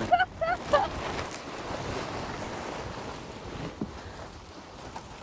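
A light breeze rushing over the microphone, steady and slowly easing off, with a few short voice sounds in the first second.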